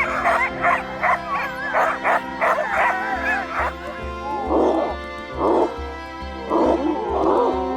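Many sled dogs yelping with wavering, howl-like cries, then a few bouts of barking in the second half, over music with a steady low beat.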